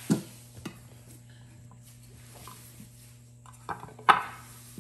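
Kitchen utensils knocking against a nonstick pot as they are set into it: a few light knocks near the start, then two sharper knocks about four seconds in, the last one the loudest.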